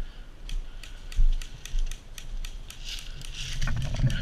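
Airsoft guns firing: a run of sharp, irregularly spaced mechanical clicks from the guns' gearboxes cycling, with a heavy knock about a second in.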